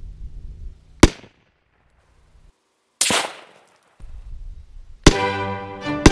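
M1 Garand semi-automatic rifle in .30-06 firing three shots about two seconds apart, each a sharp crack with a short tail. Violin music comes in with the third shot near the end.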